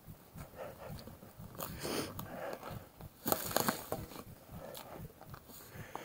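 Mountain bike ridden over a rough, freshly cut dirt trail: tyres crunching on loose ground and the bike rattling over bumps, with a burst of sharp clattering knocks about three and a half seconds in.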